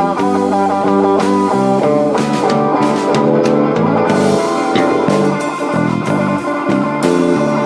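Live slow blues band playing an instrumental passage: guitar over bass and drums, with no singing.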